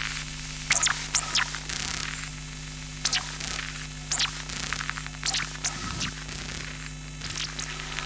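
Electromagnetic emissions of an old Sony CD player reading data, picked up as audio: a steady mains-like hum and static, cut by short sweeping electronic chirps at irregular intervals, about six in the space.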